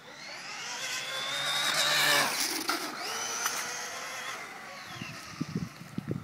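An HPI Blitz RC truck's brushless motor, driven by a Castle Sidewinder speed controller on a 3S 11.1 V LiPo, whining under full throttle. The pitch rises as it accelerates and it is loudest about two seconds in, then it holds a high steady whine that fades as the truck runs away down the street.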